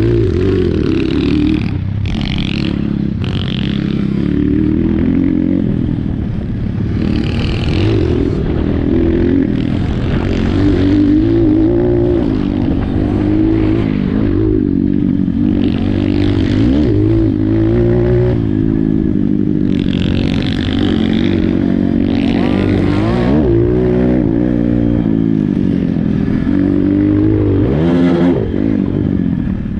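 Apollo RXF 150 pit bike's 150 cc single-cylinder engine revving up and down over and over as it is ridden. Bursts of higher hissing noise come and go over it.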